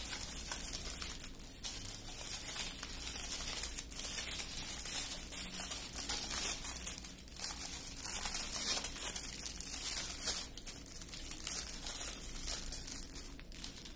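Small plastic bags of diamond painting drills crinkling as they are handled and shuffled by hand, with an irregular run of rustles and crackles throughout.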